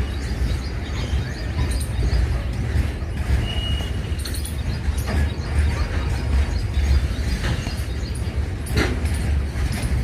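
Double-stack freight train rolling past: a steady heavy rumble of wagons on the rails, with scattered clanks and a brief high squeal about three and a half seconds in.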